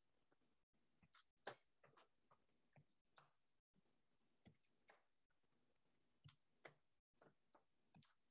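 Near silence with a few faint, irregular taps of feet stepping on the floor during aerobic steps.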